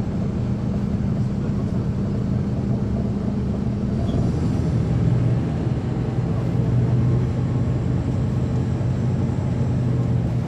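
Caterpillar C13 ACERT diesel engine of a NABI 40-SFW transit bus running under way, heard from the rear seats inside the bus. About four seconds in, its pitch drops and it gets a little louder.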